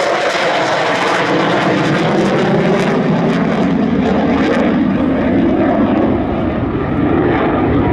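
F-16 fighter's Pratt & Whitney F100 turbofan engine roaring loudly as the jet flies its display. The first few seconds carry a crackle; from about five seconds in the sound turns duller as the high end fades.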